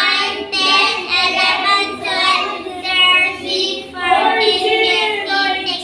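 Children counting aloud together in a drawn-out, sing-song chant, with a woman's voice among them, one number at a time at an even pace.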